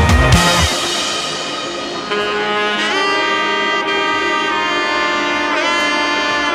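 Background music: a drum-heavy beat cuts off about half a second in, then a saxophone-like wind instrument plays long held notes with a few bends in pitch.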